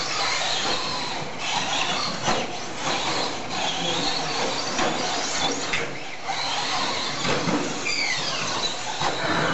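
2WD Slash radio-controlled short-course trucks running on a dirt track, their motors and gears giving high whines that rise and fall over a dense hiss, echoing in the hall.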